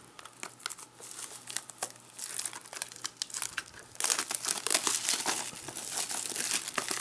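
Clear plastic shrink-wrap crinkling as it is peeled off a Blu-ray case, louder and busier from about four seconds in.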